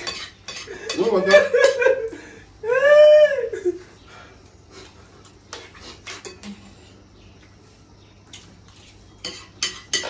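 Clinks and taps of a spoon and plates as rice is eaten. About three seconds in a man lets out one drawn-out cry that rises and falls in pitch, with brief voice sounds just before it.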